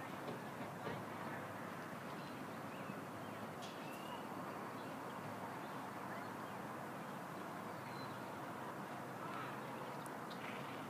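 Steady outdoor background hiss with a few faint, short high chirps, about four seconds in and again near the end.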